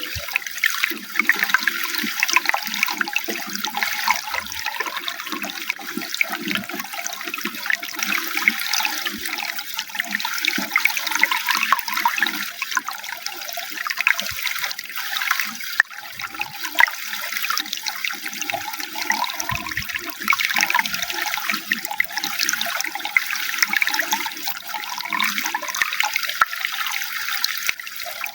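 Running water flowing and splashing without a break: a steady rush with an uneven, lower burble beneath it.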